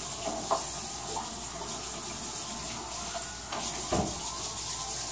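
Kitchen sink tap running with a steady hiss of water, with a few short knocks about half a second in and near the four-second mark.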